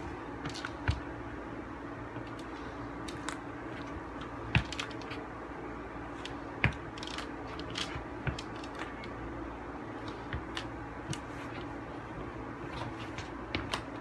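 Nike Huarache sneakers stepping and shifting on a hard floor close to the microphone: scattered soft thumps and taps, the sharpest about one, four and a half and six and a half seconds in, over a steady low hum.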